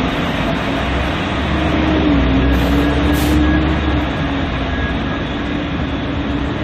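Steady, loud mechanical rumble with a droning hum from heavy engines or machinery running; the hum dips slightly in pitch about two seconds in while the low rumble swells for a couple of seconds.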